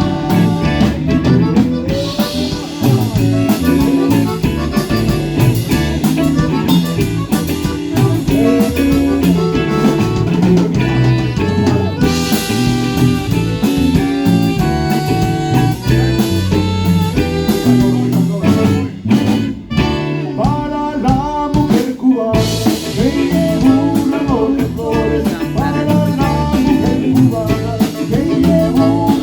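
Live band playing an instrumental stretch of a cumbia, with a steady drum beat, bass and held melody notes, dropping back briefly about two-thirds of the way through.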